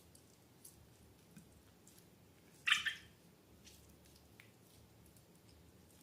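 Soft sticky clicks and squishes of slime being handled, with one louder wet squelch about three seconds in.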